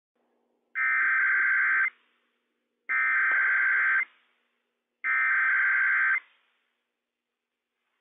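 Emergency Alert System SAME header on NOAA Weather Radio: three identical bursts of warbling digital data tones, each a little over a second long and about a second apart. The bursts encode the alert's event code (Required Weekly Test), its area and its time ahead of the spoken message.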